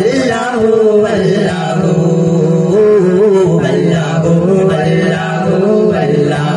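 Qawwali sung by young male voices, a lead voice sliding between notes over the group's chorus, with a hand drum keeping the beat.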